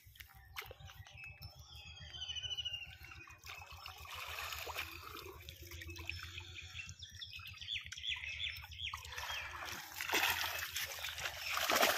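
Pond water sloshing and splashing around a person's legs as he wades through the shallows toward the bank, getting louder near the end as he steps out. Small birds chirp in the background during the first few seconds.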